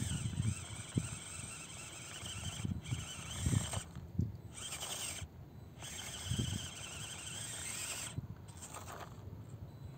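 The electric motor and gears of a 1:18 Absima CR-18 Pro Hunter mini RC crawler whining as it climbs rock, the whine cutting out briefly several times as the throttle is let off. Irregular low thumps come through underneath.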